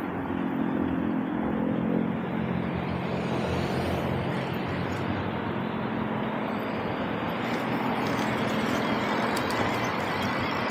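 Steady wind and road noise of riding along, with a low hum in the first few seconds and a thin high whine that rises near the end.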